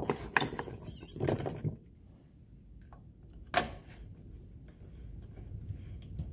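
Small metal parts clinking and rattling as they are handled, a burst of clatter in the first second and a half, then one sharp click about three and a half seconds in as a tool is picked up.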